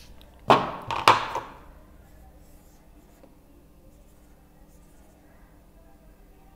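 Two quick swipes of a whiteboard eraser rubbing across the board, about half a second and a second in, followed by faint strokes of a marker drawing on the whiteboard.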